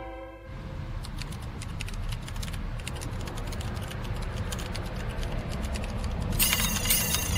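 Scattered light clicks and ticks. About six and a half seconds in, a motor scooter's engine starts, with a high-pitched whine.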